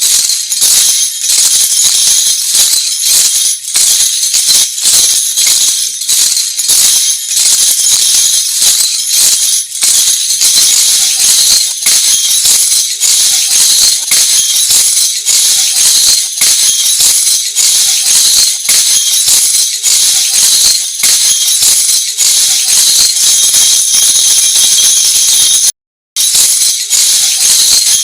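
A lezim, the Maharashtrian folk jingle instrument of a wooden frame strung with small metal cymbal discs, shaken and struck in a steady rhythm, giving a continuous bright metallic jingling. The sound cuts out briefly near the end.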